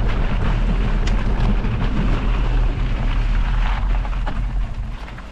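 Wind buffeting the microphone of a moving mountain bike, over the rolling of its tyres on a loose gravel dirt track, with small rattles and clicks. The noise eases near the end as the bike slows.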